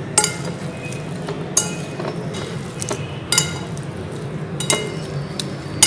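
Metal forks clinking against a glass mixing bowl while tossing marinated fish pieces, about five sharp ringing clinks a second or so apart.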